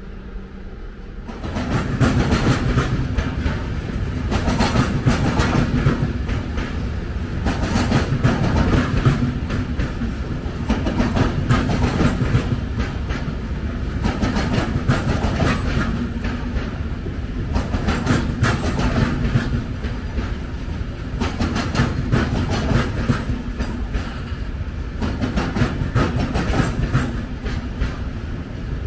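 A train passing at close range, its wheels clattering over the rail joints in a steady run of beats. The sound starts suddenly about a second in and keeps going.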